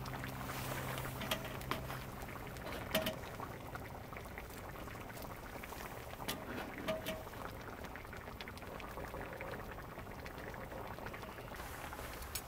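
Steady bubbling of liquid at a boil, with a few light clicks and knocks and a low hum that fades out about two seconds in.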